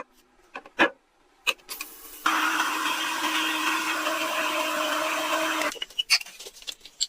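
A small electric power tool's motor runs steadily for about three and a half seconds, starting and stopping abruptly, after a few knocks and clicks of handling.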